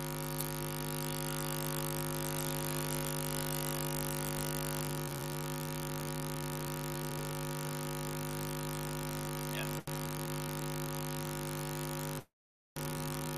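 Steady electrical mains hum with a stack of overtones, with a single faint click about ten seconds in. The sound cuts out completely for about half a second near the end.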